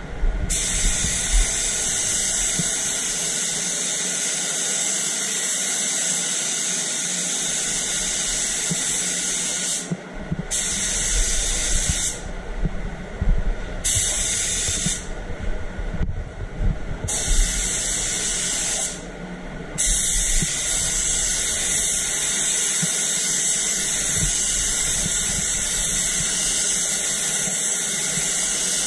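DeVilbiss GTI Pro Lite HVLP spray gun hissing as it sprays white direct-gloss topcoat. The air cuts off briefly about five times in the middle, where the trigger is let go between passes, then runs steadily again.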